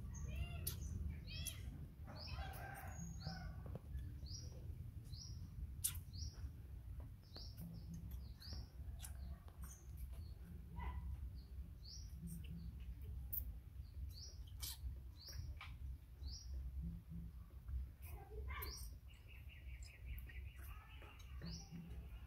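A small bird chirping over and over, short high rising chirps about once a second, over a low steady rumble. Near the end a quick rattling trill joins in for a couple of seconds.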